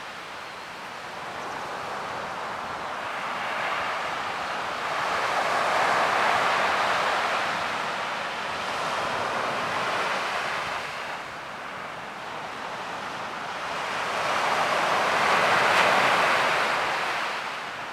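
Ocean surf: waves rushing in a steady noise that swells and fades in slow surges, loudest about six and sixteen seconds in.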